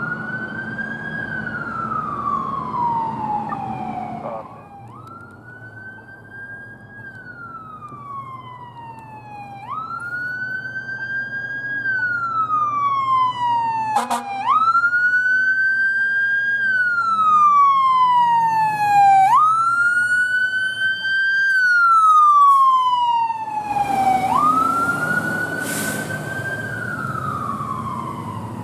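Emergency vehicle siren on wail, six times winding quickly up in pitch and then sliding slowly down, each cycle about five seconds long, over the vehicle's engine. It gets louder in the middle and fades toward the end, with a brief hiss near the end.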